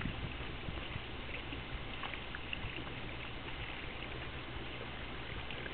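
A boat's motor running steadily at low speed: a low, even hum with a hiss over it.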